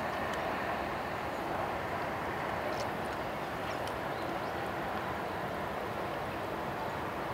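Steady outdoor background noise, an even hiss with no clear pitch, and a few faint, brief high chirps scattered through it.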